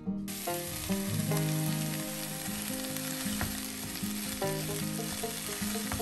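Diced pumpkin, carrot and potato sizzling in a stainless steel pot while being stirred with a wooden spoon. The sizzle comes in abruptly a moment in and holds steady.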